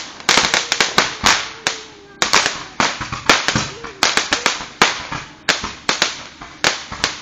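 Firecrackers or crackling fireworks going off: sharp cracks in rapid, irregular succession, several a second, without a pause.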